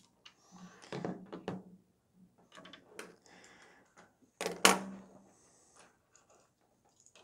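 Plastic gel-blaster gearbox parts and metal coil springs being handled and set down on a wooden tabletop: a few light knocks and clicks, with one louder thunk about four and a half seconds in.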